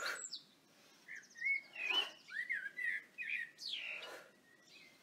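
A small songbird chirping, a quick run of short warbling notes through the middle, with a couple of short breathy whooshes at about two and four seconds in.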